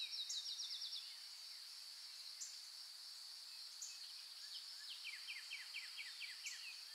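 Faint birdsong: fast trills of short repeated downward notes, one at the start and another from about five seconds in, over a thin steady high note.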